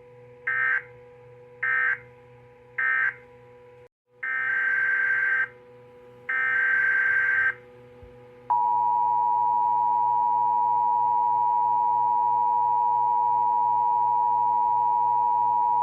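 Emergency Alert System data tones. Three short SAME end-of-message bursts are followed, after a brief cut, by two longer SAME header bursts. Then the steady two-tone EAS attention signal sounds for about eight seconds, all over a faint steady hum.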